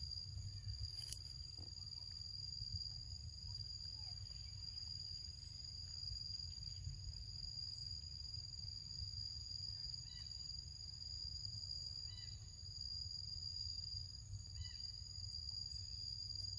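Steady high-pitched drone of insects calling in forest, several even tones held without a break, over a low rumble. A few short, faint chirps come in past the middle.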